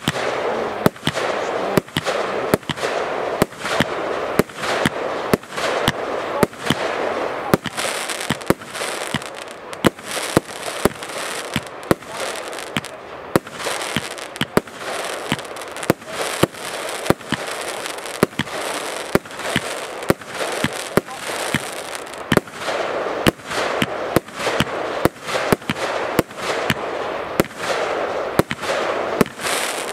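Kimbolton Fireworks 'Sovereign' compound cake firing a continuous volley, one sharp bang after another at about two a second, with a dense crackle filling the gaps between them.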